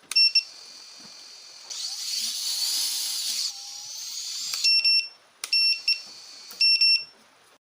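Small FPV quadcopter's EMAX ECO 2400kv brushless motors spinning up, whining with gliding pitch for about two seconds, then winding down. Short high electronic beeps from the quad come before it and three more times near the end.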